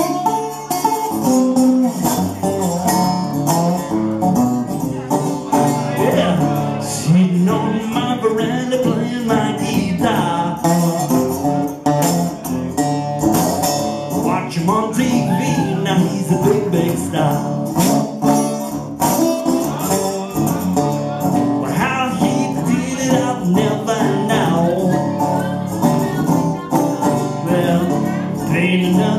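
Live performance of a strummed acoustic guitar with a man singing at the microphone.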